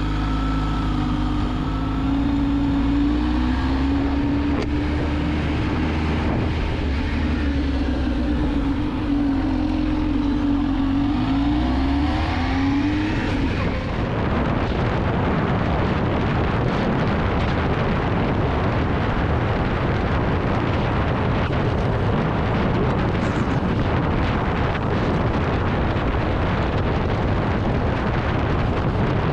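Kawasaki Z H2's supercharged inline-four running at low revs as the bike moves off, its pitch wavering and then rising about 12 seconds in. After an abrupt change about 14 seconds in, a steady rush of wind noise on the microphone covers the engine as the bike cruises at road speed.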